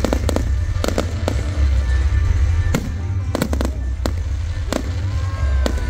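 Aerial firework shells bursting in a display: about a dozen sharp bangs at uneven intervals, some in quick pairs, over a steady low rumble. A gliding whistle comes near the end.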